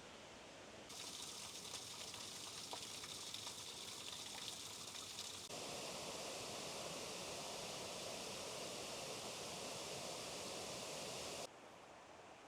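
Rushing water of a mountain stream, a steady hiss that changes abruptly about a second in and again halfway through as the shots change, then drops back to quieter outdoor ambience near the end.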